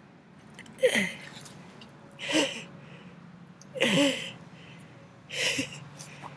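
Domestic tabby cat meowing repeatedly: four short calls about a second and a half apart.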